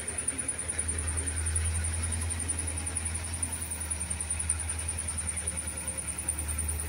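Wheel loader's diesel engine running as the machine manoeuvres with its bucket raised, a steady low rumble that swells from about one to three seconds in.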